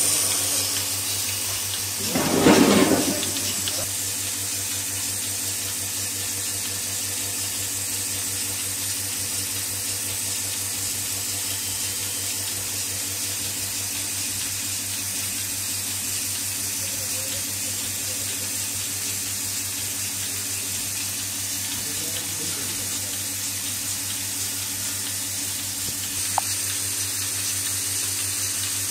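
Melasty portable milking machine running steadily: its electric dry vane vacuum pump hums while milk and air hiss through the hoses into the stainless-steel bucket. A brief loud sound, about a second long, stands out some two seconds in.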